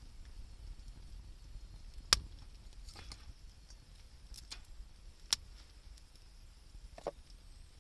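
Wood fire burning, with a handful of sharp crackling pops spaced irregularly, the loudest about two seconds in, over a low steady rumble.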